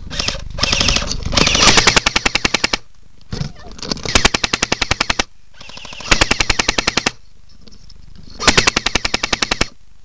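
Airsoft gun firing on full auto in several bursts of rapid, evenly spaced shots, each burst lasting a second or so, with short pauses between them.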